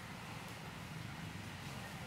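Steady low hum with hiss: background ambience, with no distinct event standing out.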